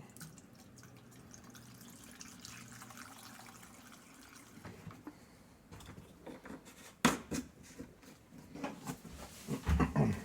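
A few sharp clicks and knocks of parts being handled on a workbench, the loudest about seven seconds in and a short cluster near the end, over a faint steady hiss.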